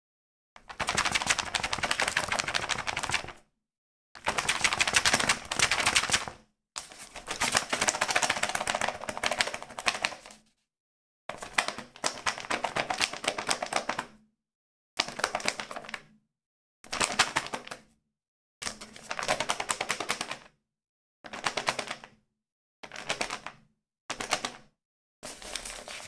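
A small book handled for foley in about eleven separate takes, each a burst of rapid, dense clicking and paper rustle lasting one to three seconds, the later ones shorter, with dead silence between them.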